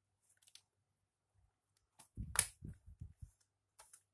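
Clicks and soft knocks of hands pressing the plastic screen bezel of an Acer Aspire laptop back into place, with a sharp click and a short run of knocks about two and a half seconds in.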